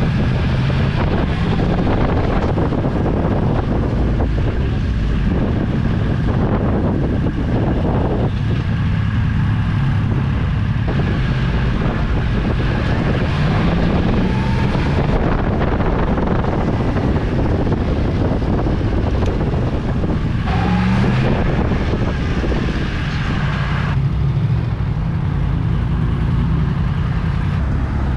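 Yamaha MT-10's crossplane inline-four engine running at low speed, with wind noise on the microphone. The revs rise briefly twice near the middle, and the engine settles lower near the end as the bike pulls up.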